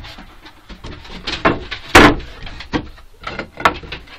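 A series of irregular knocks and bumps, about half a dozen, the loudest about two seconds in.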